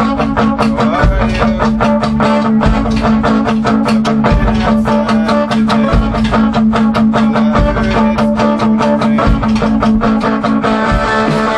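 A band playing live in a small room: electric guitar over a steady drum beat with cymbal hits, the drumming easing off near the end.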